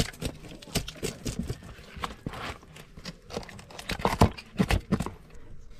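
Irregular sharp knocks and clicks, a dozen or more strokes at uneven spacing, from a knife and hands working the fish on a hard surface.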